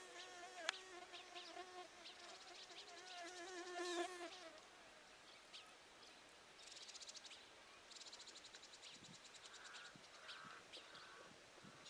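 A fly buzzing close by with a wavering pitch, fading out after about four seconds, over faint scattered high chirps. Later come faint rapid high trills.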